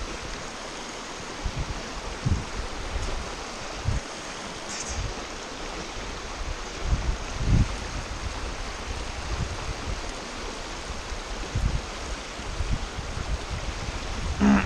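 Fast river water rushing over a shallow riffle, a steady hiss, broken by a few short low thumps.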